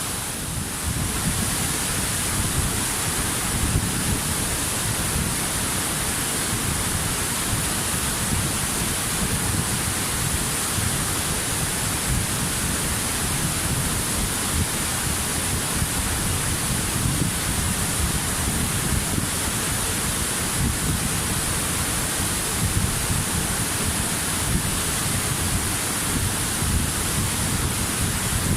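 Waterfall: a steady rush of falling water, with a deep rumble underneath and a bright hiss on top.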